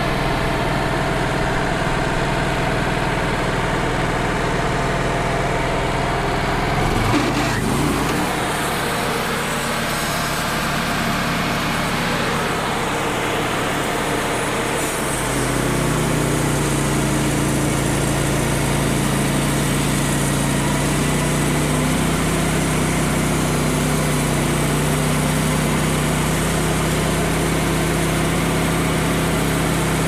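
Wood-Mizer LT35 portable band sawmill running under load as its bandsaw head cuts a board through a red oak log. The engine runs steadily, and its note shifts twice, about a quarter of the way in and again about halfway.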